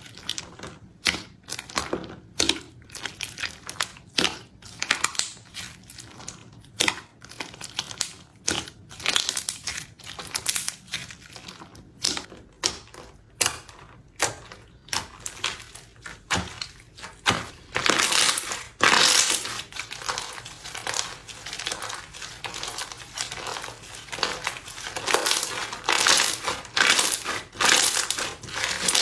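Crispy slime crackling and crunching in dense, irregular runs of small crackles, loudest about two-thirds of the way through and again near the end.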